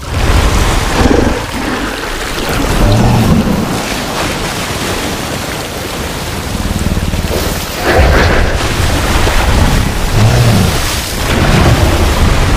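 Film sound-effects mix of a giant creature battle in water: heavy rushing and splashing water with deep rumbles that swell several times.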